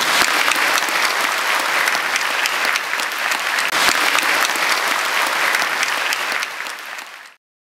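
Audience applauding: a steady round of hand-clapping that fades and then cuts off suddenly near the end.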